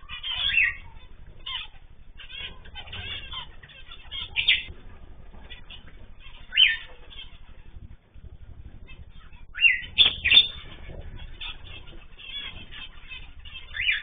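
Aviary of zebra finches and cockatiels: a steady background of small-bird chirping, broken every few seconds by short, loud, falling calls, with a cluster of them about ten seconds in.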